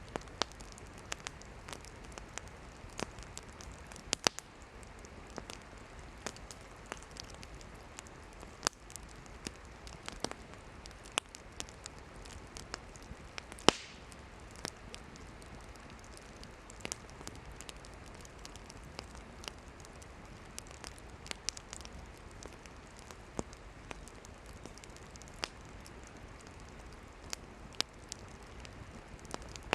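Wood campfire burning, crackling and popping irregularly over a steady soft hiss of the flames, with one louder pop about halfway through.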